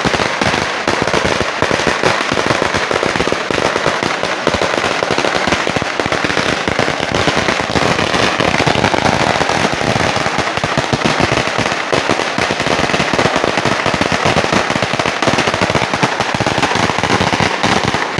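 Chinese firecrackers going off on the ground: loud, many small bangs in rapid, unbroken succession, like a continuous crackle.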